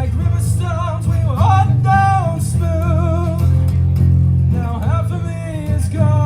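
Live acoustic guitar playing a slow song, with a melody line above it that bends and slides in pitch.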